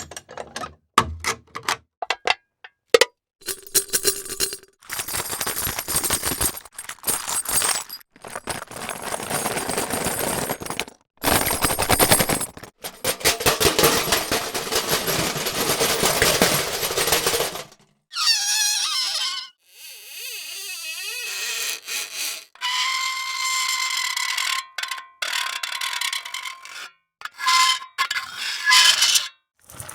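A string of separate foley sound effects. First come quick clicks and knocks, then several long scraping or rubbing noises a few seconds each, then squeaky, whining rubs near the end.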